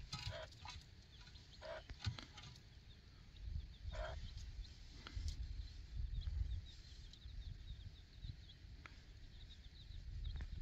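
A chicken clucking a few short times, faint against the outdoor background, with light knocks and faint high chirping in between.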